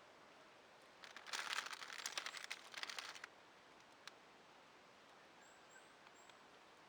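Rustling, crackling noise for about two seconds, then a single click, and a few faint, high, short chirps of small birds.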